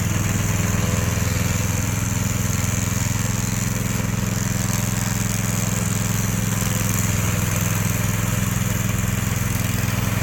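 Remote-controlled lawn mower's engine running steadily at an even speed, with a steady high whine over the low engine note.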